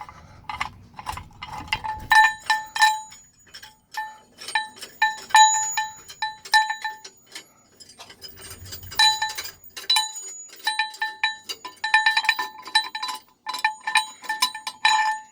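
Metal parts clinking over and over as the spare tire's hold-down is unscrewed: runs of sharp metallic clinks in bursts, each with the same bell-like ring.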